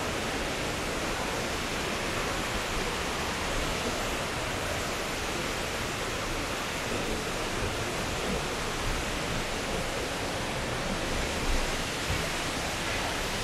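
Steady rushing roar of a waterfall, an even wash of water noise with no change. A couple of brief soft knocks come near the end.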